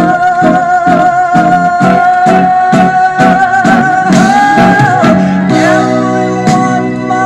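A song played from a vinyl record on a Victrola record player: a long wavering melody line, sung or played, over a steady plucked guitar accompaniment, giving way to held low chords about five and a half seconds in.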